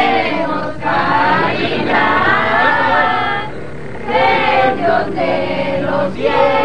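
A group of people singing together in chorus, a Christmas posada song, in phrases with short breaks between them.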